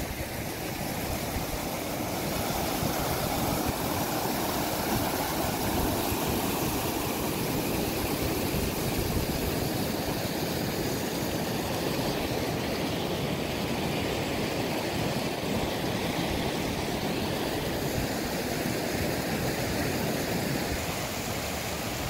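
Hot water from the Boiling River hot spring rushing and splashing over rocks into the river: a steady, even rush of water.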